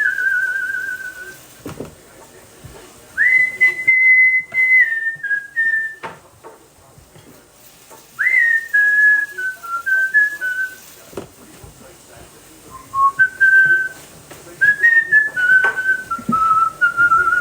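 A person whistling a tune in several short phrases with pauses between, the notes stepping up and down and wavering, with a few sharp knocks between the phrases.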